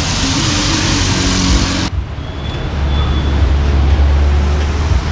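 Street traffic noise: a steady hiss of passing vehicles that changes abruptly about two seconds in, followed by a low engine rumble from about three seconds in.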